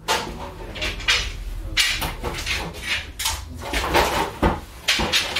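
Irregular knocks, bumps and clatter of objects being handled and set down, several sudden strikes a second or so apart over a low rumble.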